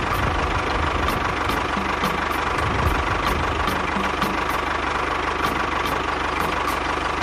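Small engine running steadily, with a light regular tick about three times a second.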